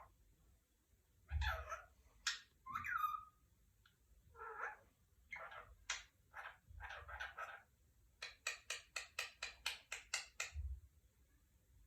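Pet parrot calling: a string of chirps and whistles, one of them falling in pitch, then a fast run of about a dozen short, sharp chirps near the end.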